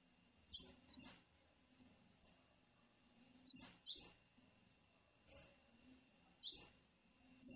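Female blue-black grassquit (tiziu) giving short, high chip calls, about eight in all, spaced unevenly and some in quick pairs.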